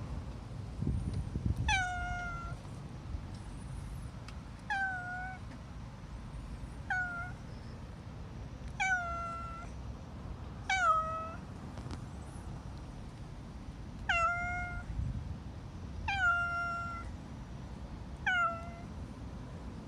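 Domestic cat meowing to beg for food: eight short meows about two seconds apart, each sliding down in pitch at the start.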